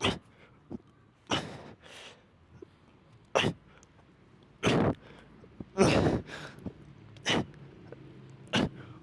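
A man's sharp, forceful breaths out, one hard huff about every second and a half, some pushed into short grunts: effort breathing on each rep of elbow-to-floor push-ups.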